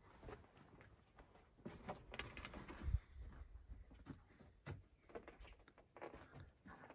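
Quiet, close-sounding air inside a small rock cave, with faint scuffs, rustles and clicks, and one dull thump about three seconds in.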